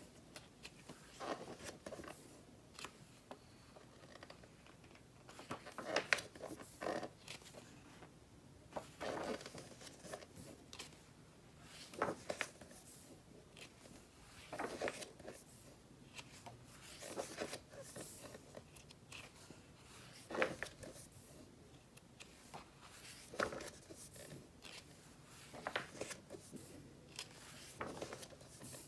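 Pages of a large, heavy photo magazine being turned by hand, each turn a short paper swish or rustle, about one every three seconds.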